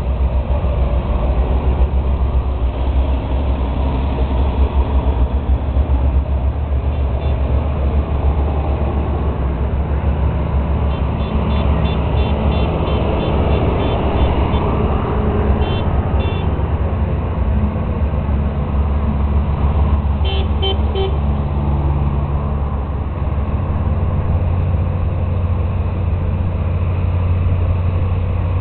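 Tractor engines running in a steady low drone, with a horn tooting several times midway and again briefly about twenty seconds in.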